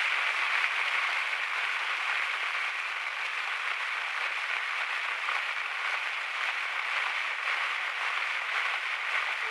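A steady, even hiss of noise with no distinct events or pitch.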